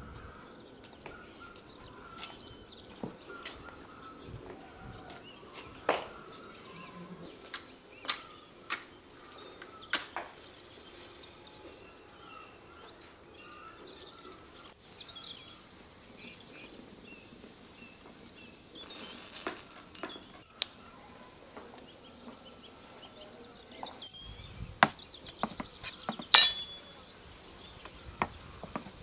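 Small birds chirping on and off, with scattered knocks and clinks of wood and metal being handled. The loudest is a sharp ringing clink near the end.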